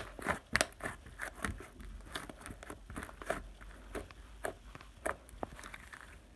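Irregular light clicks and crinkling handling noises, several a second.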